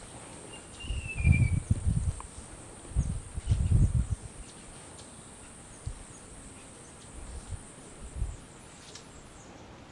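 Steady high-pitched insect drone in forest, with a single short falling bird whistle about a second in. Two clusters of low thumps come in the first half and are the loudest sounds.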